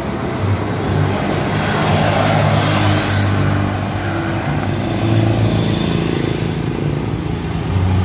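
Motor vehicles passing close by on a highway: engines running steadily with tyre noise, one vehicle swelling loudest about two to three seconds in.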